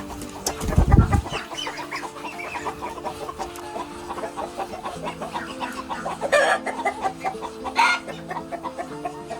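Farm poultry clucking and calling in many short, overlapping calls over background music of steady held notes, with a low thud about a second in.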